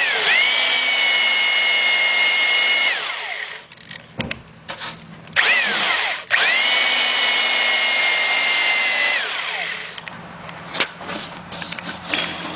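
Power-tool motor spinning an aluminum oxide cone sanding disc to chamfer the top edge of a bored cylinder in a Willys F-head block. It whines up to a steady pitch, runs about three seconds and winds down, then runs again for about four seconds and winds down. Near the end come light rubbing and taps as a hand wipes across the block.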